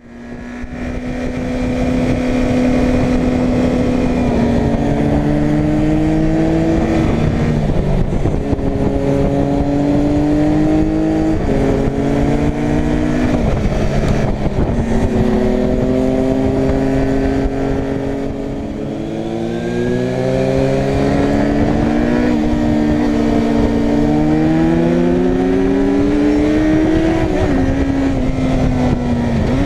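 Suzuki Bandit 600's inline-four engine under way, its revs rising in each gear and dropping sharply at each upshift, over steady wind rush. About two-thirds through the revs ease off and fall briefly before it pulls up through the gears again.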